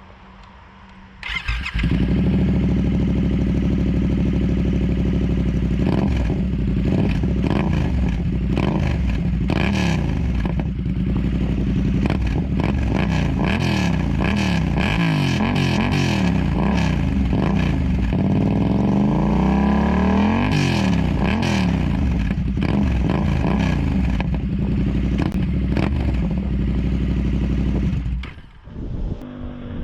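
Yamaha MT-07's 689 cc parallel-twin engine through an SC Project CR-T exhaust with the dB killer removed, coming in about a second in, idling and revved again and again in quick blips, with one longer rev that rises and falls. The sound drops away near the end.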